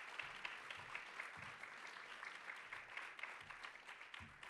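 Audience applauding: many hands clapping in a steady patter that begins to thin out near the end.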